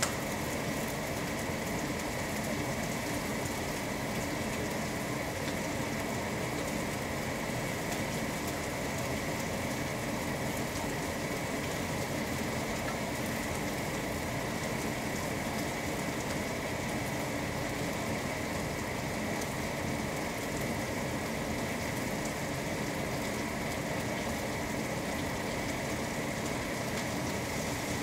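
Chicken pieces sizzling steadily as they sear skin-side down in a hot stainless steel skillet, over the steady hum of the range-hood vent fan.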